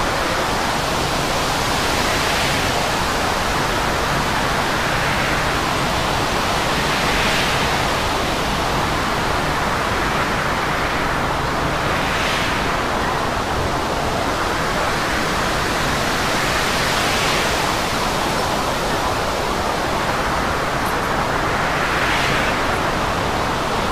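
Storm wind and heavy seas rushing over a ship's bow in a steady loud noise that swells about every five seconds, as waves break and spray sweeps the deck.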